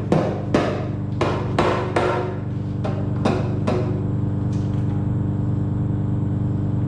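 Hammer taps on metal during an engine teardown: about eight sharp, ringing strikes in the first four seconds, then they stop. A steady low hum runs underneath throughout.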